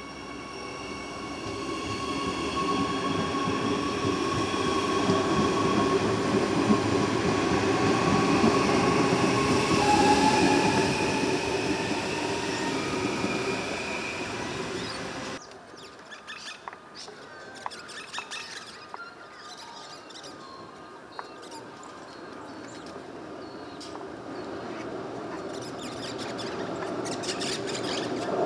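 Adelaide Metro 4000-class electric multiple-unit train running through the station. Its steady whine and wheel squeal sit over a rolling rumble that swells to a peak about ten seconds in and then eases. The sound cuts off suddenly to a quieter stretch of short high bird chirps, and another electric train is heard approaching, growing louder near the end.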